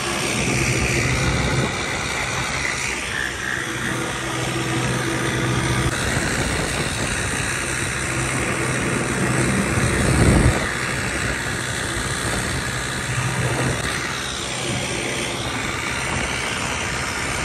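Turbocharged New Holland 3600 tractor's diesel engine running steadily on the move, with a thin high turbo whistle over it in the first few seconds. One loud thump about ten seconds in.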